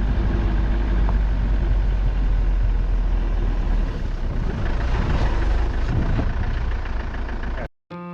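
Vehicle running, a heavy low rumble with road and wind noise that eases a little about halfway through, then cuts off abruptly near the end.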